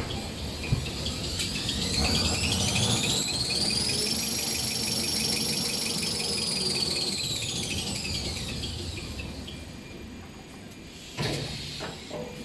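Kitchen towel paper making machine speeding up, running and slowing down: its drive whine rises in pitch, holds steady, then falls away, with a fast even ticking from the rollers while it runs at speed. A knock comes near the end.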